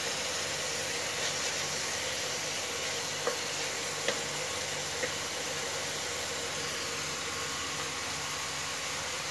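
Marinated chicken and onions sizzling steadily in a nonstick kadai while a wooden spatula stirs them, with a few light taps of the spatula against the pan around the middle.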